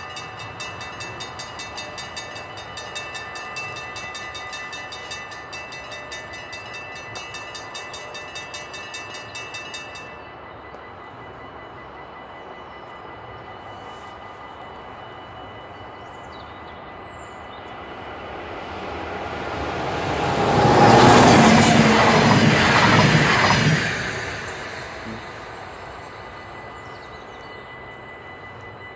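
Level-crossing warning bells ring rapidly and stop abruptly about ten seconds in. About two-thirds of the way through, an NS 1700-class electric locomotive with DD-AR double-deck carriages passes over the crossing: it swells to a loud rush for a few seconds, then fades.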